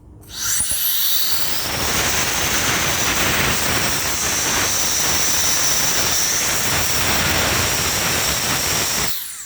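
Small handheld cordless electric air blower with a high-speed fan, switched on: it whines up to speed, blows a loud steady rush of air with a high whine, and winds down when switched off near the end.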